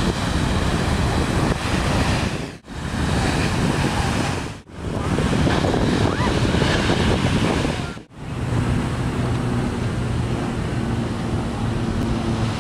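Heavy shore-break waves crashing and churning, with wind noise on the microphone. The sound dips out briefly three times, and in the last few seconds a low steady hum sits under the surf.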